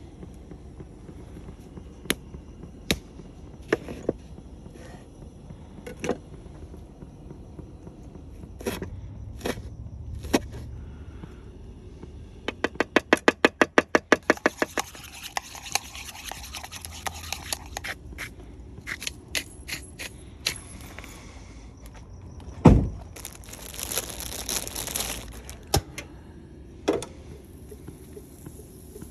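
Kitchen prep sounds: scattered taps and clicks of utensils, then a fast, even run of chef's-knife strokes chopping herbs on a wooden cutting board, about nine a second for two seconds. Later a loud thump, followed by a couple of seconds of hiss.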